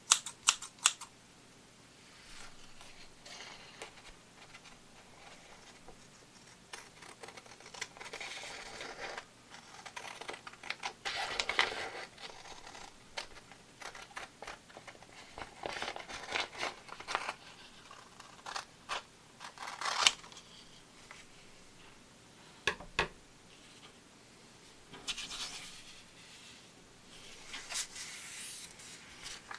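Scissors cutting through a sheet of paper, with sharp clicks of the blades and stretches of paper scraping and rustling. Toward the end the paper rustles as it is handled and creased.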